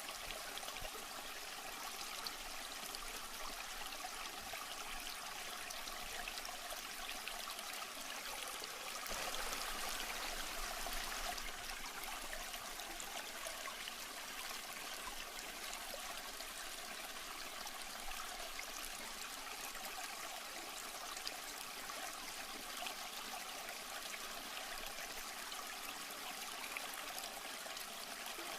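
Aquarium water trickling and splashing steadily, a little louder about ten seconds in.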